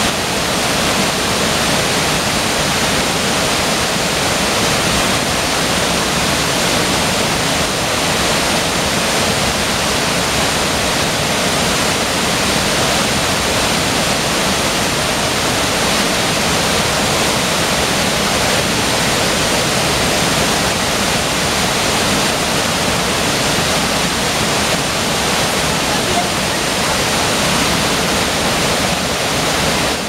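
Waterfall on a rainforest creek, a loud, steady rush of falling water.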